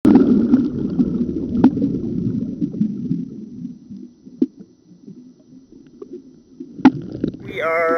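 Muffled underwater sound from a submerged camera: a low rumble of moving water with clicks and knocks. It dies down after about three seconds, leaving a few sharp clicks.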